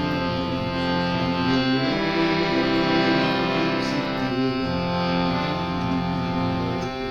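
Instrumental music with sustained chords that change about every three seconds.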